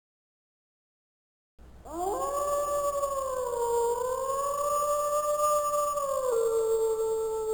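Silence, then about two seconds in a single long canine howl that swoops up at its start, wavers on a held note, and drops to a lower pitch near the end.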